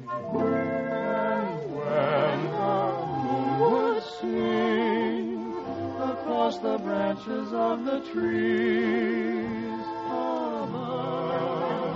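Choir singing a slow, sustained melody with vibrato over musical accompaniment, on an old radio transcription recording with a narrow frequency range.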